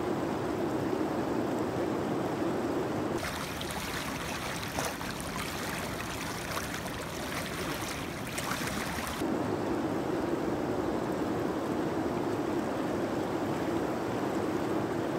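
Shallow river riffle rushing steadily around a wading angler. About 3 seconds in, it turns brighter and hissier, close over the current, with a few small knocks. About 9 seconds in, it goes back to the steadier rush.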